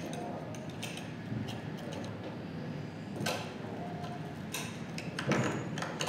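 A big spring-steel circlip being worked by hand into the groove of a motorcycle clutch's aluminium inner hub: a few light metal clicks and scrapes, with a sharper click a little over three seconds in.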